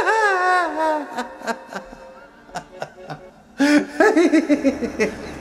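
A man laughing: a high-pitched laugh that falls away in the first second, a few scattered short sounds in the middle, then a second burst of quick ha-ha laughter near the end.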